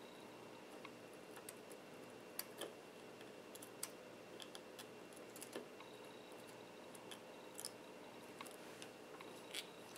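Faint, irregular small clicks and taps from a tool and fingers working at the film on the edge of a smartphone screen, about a dozen light ticks over a steady faint hum.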